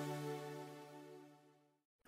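Background music: a held chord fading out to near silence about two-thirds of a second in.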